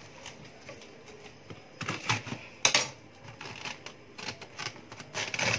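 Cabbage leaves being peeled off a blanched cabbage head: irregular crisp crackling and snapping, with the loudest snaps about two seconds in, just before three seconds, and near the end.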